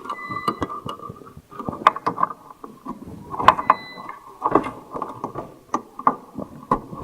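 Irregular clicks, taps and rattles of computer parts and cables being handled and fitted inside a desktop system unit, over a steady faint tone.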